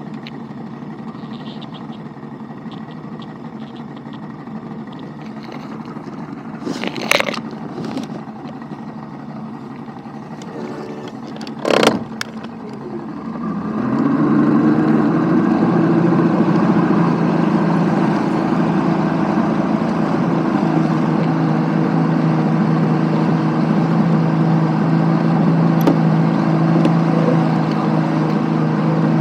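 A few sharp knocks, then an engine starts about thirteen seconds in, speeds up and keeps running at a steady pitch, with wind noise on the microphone.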